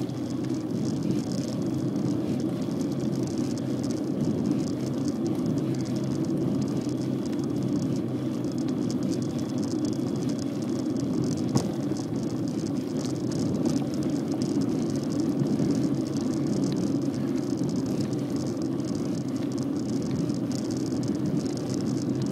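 Steady wind and tyre noise from a bicycle rolling along an asphalt road, with light rattling throughout and one sharper knock about halfway through.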